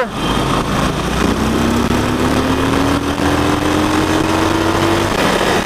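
Harley-Davidson Forty-Eight's air-cooled V-twin running under way through its stock mufflers, fairly quiet for a Harley. A tone climbs steadily in pitch from about a second in and stops shortly before the end, as the bike gathers speed.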